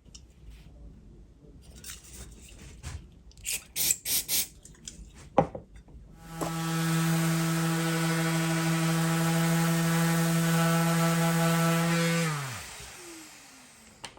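Handling clicks and knocks, then an electric power tool's motor starts about six seconds in and runs at a steady pitch for about six seconds. It is switched off and its pitch falls as the motor winds down.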